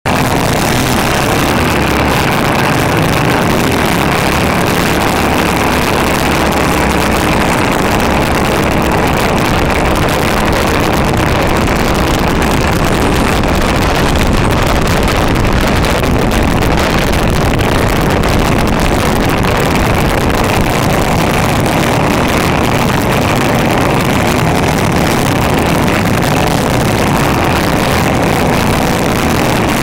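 Racing go-kart's small engine running hard at close range, heard from a camera mounted on the kart, mixed with wind rushing over the microphone. The sound is loud and steady, with no clear rises or breaks.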